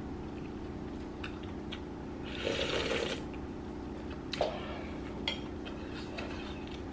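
Noodles being slurped in one short burst about two and a half seconds in, with a few light clicks of chopsticks and a metal spoon against the bowl, over a steady low hum.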